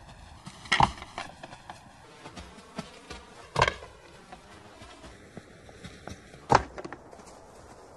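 Alpine ibex horns clashing as young males spar: three sharp cracks about three seconds apart, with lighter knocks between, over faint steady background noise.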